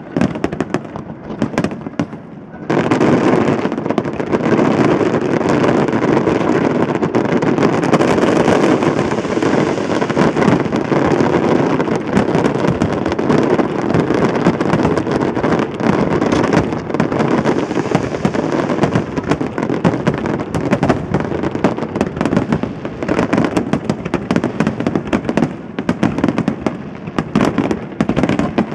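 Aerial fireworks shells bursting in a dense, unbroken barrage of bangs, which turns much louder and thicker about two and a half seconds in.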